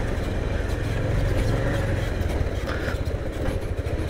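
Motorcycle engine running steadily at low speed, an even rapid putter, while riding on a muddy dirt track.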